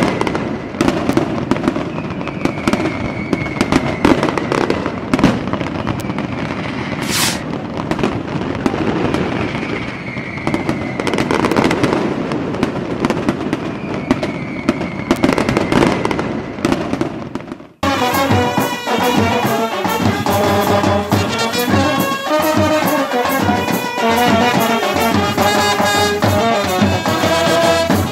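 Aerial fireworks crackling and banging continuously, with a few falling whistle tones. About two-thirds of the way through, this cuts abruptly to a brass band playing with drums.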